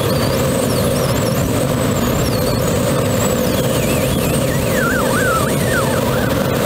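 Steady rush of airflow noise from a Grob G103 Twin Astir glider in flight, with thin whistling tones that waver up and down in pitch, stronger near the end.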